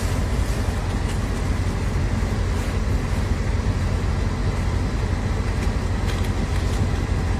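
Steady low rumble with a hiss over it, unbroken throughout.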